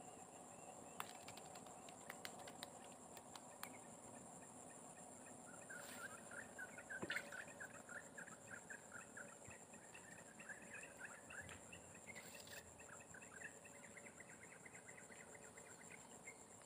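Faint outdoor ambience: a steady high insect drone, with a bird calling in quick repeated chirps from about six seconds in. A few light clicks come in the first four seconds.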